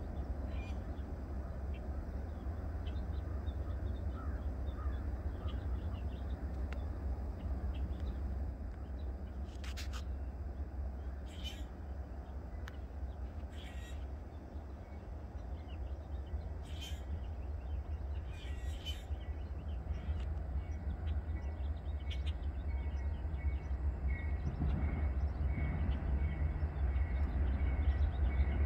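Distant diesel freight train approaching: a steady low rumble that grows louder toward the end. A few short bird calls sound over it.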